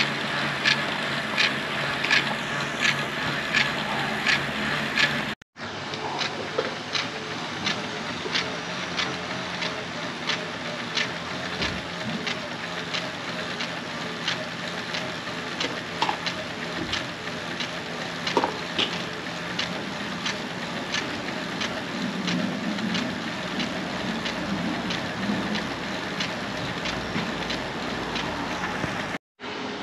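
Bicycle being pedalled on a direct-drive (wheel-off) turbo trainer: a steady whir with a regular tick about twice a second. The sound cuts out briefly twice.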